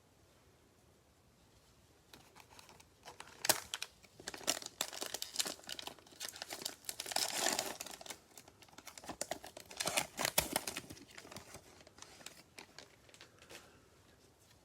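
Cellophane wrapper of a football card cello pack crinkling and tearing as the pack is opened, with dense sharp crackles. It starts about two seconds in and dies away a few seconds before the end.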